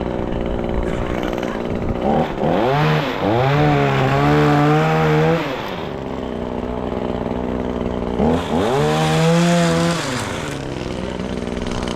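Chainsaw engine idling and revved up to full speed twice, for about three seconds and then about two, while cutting up the limbs of a fallen tree.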